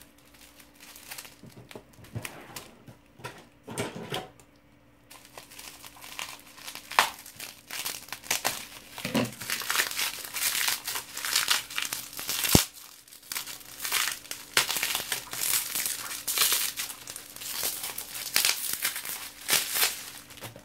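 Plastic bubble wrap crinkling and rustling in the hands as it is unwrapped from a small box, sparse at first and dense from about a third of the way in. One sharp snap about halfway through.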